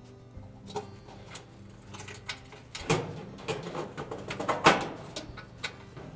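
Knocks, clicks and scraping from hands working inside a clothes dryer's lower cabinet, fitting the heater assembly into place. The handling sounds are sparse at first and grow dense and loudest from about three to five seconds in, with one sharp knock near the end of that stretch.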